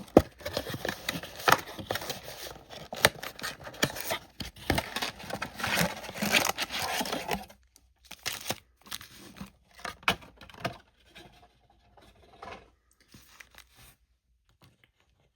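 Trading-card packaging being torn open by hand: wrapper plastic and foil tearing and crinkling, busy for about the first seven seconds, then thinning to scattered crinkles that fade out near the end.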